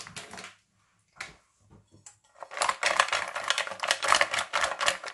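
Pieces of king crab leg, coated in egg white and cornstarch, being tossed in a glass bowl. For the last two and a half seconds there is a fast, dense clatter of shells against the glass.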